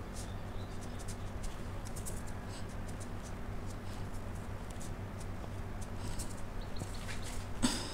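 Watercolour brush work: faint scattered taps and light scratches from the brush and painting materials over a steady low hum, with one louder tap near the end.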